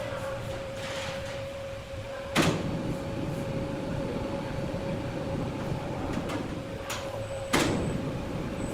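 A machine runs with a steady, even-pitched hum and a low rumble, broken by two loud knocks about five seconds apart.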